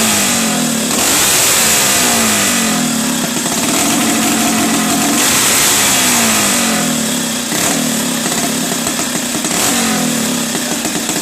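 Small high-revving engine being blipped repeatedly during a tune-up, its pitch rising and falling about every one to two seconds.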